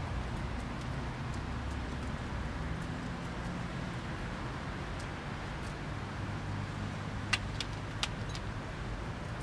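Steady low hum of a motor vehicle engine in the background, with a few faint clicks about seven to eight seconds in.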